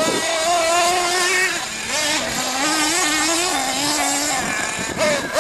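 Small nitro (glow-fuel) engine of a radio-controlled truggy running at high revs, its pitch rising and falling with the throttle, dipping briefly about four seconds in before revving up again.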